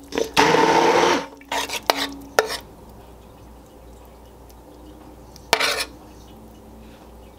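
A handheld immersion blender puréeing soup in a stainless steel pot: one burst of about a second near the start, then a few shorter pulses with sharp clicks of metal against the pot. After that a metal spoon stirs the smooth soup, with one short scrape about five and a half seconds in.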